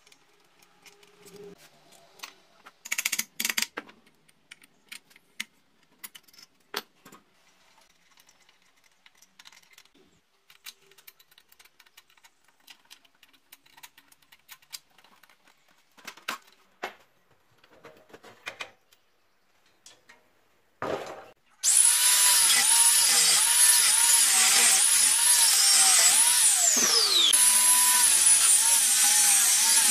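Scattered clinks and knocks of hand tools and bolts on metal, then, about three-quarters of the way in, a handheld angle grinder starts loudly and cuts into steel. Its whine wavers up and down as the disc bites, dropping sharply once near the end.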